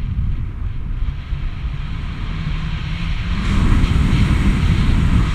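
Wind rushing over an action camera's microphone in paragliding flight, a steady low rumble that grows louder about three and a half seconds in.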